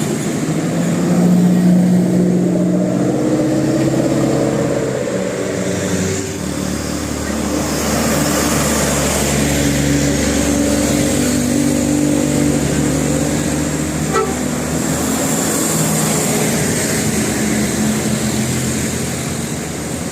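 Bus telolet horn, a Basuri multi-tone musical air horn, playing a tune of held notes that step up and down in pitch. Under it the bus engine runs, louder from about six seconds in.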